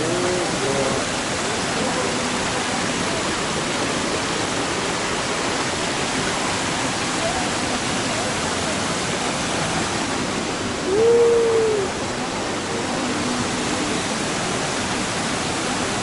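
Steady rushing of a small waterfall pouring into a rocky pool, with shallow rapids running over stones. A short voice call rises above the water about eleven seconds in.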